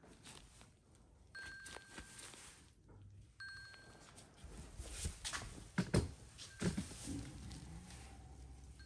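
Apple Watch timer alarm chiming short steady tones about every two seconds, signalling that the timer has run out. A few sharp knocks and rustles from handling come about halfway through.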